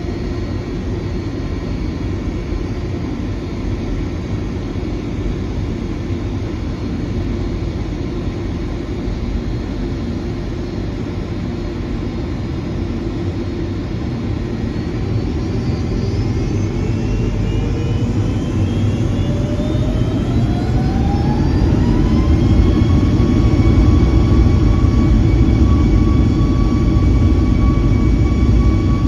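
Boeing 757-200's Rolls-Royce RB211 turbofans heard from inside the cabin, spooling up for takeoff. Over a steady low rumble, a whine rises in pitch for several seconds, then settles on a steady tone as the engines reach takeoff thrust and the sound grows louder.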